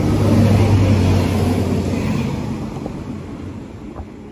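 Northern diesel multiple unit passing close along the platform: engine drone with a steady low hum and wheel-on-rail rumble, loudest about half a second in, then fading as the train pulls away.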